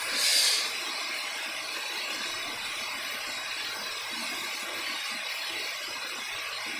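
Steady hiss of background room noise with no speech, and one brief high-pitched swish, like a rustle, about half a second in.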